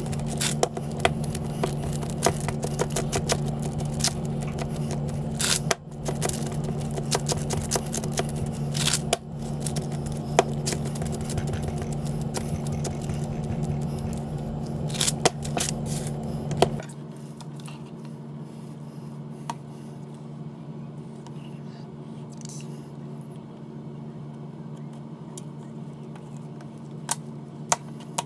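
Wax paper crinkling and crackling and nitrile-gloved hands pressing and working a lump of modelling clay, giving many sharp clicks and scrapes over a steady low hum. About 17 seconds in the hum and handling noise drop sharply, and only a fainter hum and a few clicks remain.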